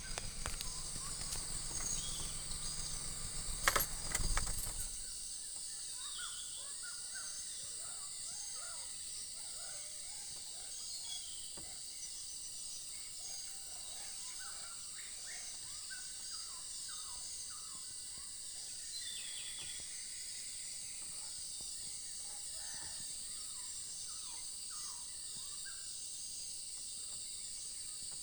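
Insects shrilling steadily at a high pitch while small birds chirp and call now and then. For the first few seconds there is a low rumble with a couple of knocks, then it clears.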